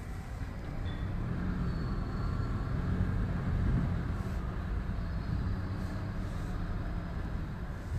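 Car driving along a street: steady engine hum and road rumble, a little louder through the middle.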